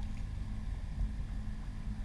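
Wind buffeting the microphone, a steady low rumble, with a faint steady hum and a few light ticks.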